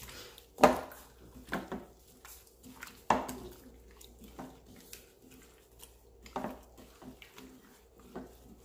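Raw chicken drumsticks being mixed by hand in a wet marinade in a glass bowl: irregular wet squishing with sharper knocks of the meat against the glass, the loudest just under a second in.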